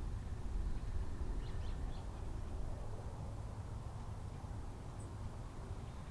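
A few faint, short bird chirps, three in quick succession about a second and a half in and a single high note near the end, over a steady low rumble.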